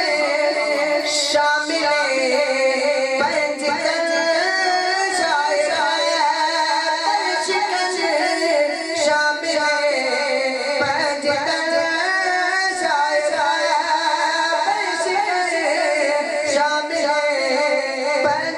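A man's voice sings a naat, a devotional Urdu poem in praise of the Prophet, into a handheld microphone. The melody is long, held and ornamented, and carries on without a break.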